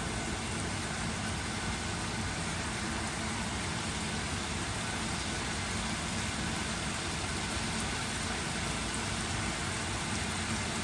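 Steady, even hiss with a low hum from chicken breast cooking on the stove.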